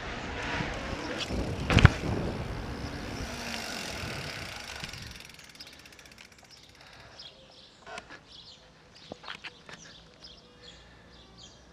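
Giant Reign e-mountain bike rolling on pavement, with tyre and wind noise and a sharp knock from the bike about two seconds in. The rolling noise then dies away as the bike slows to a stop, leaving scattered light clicks from the bike.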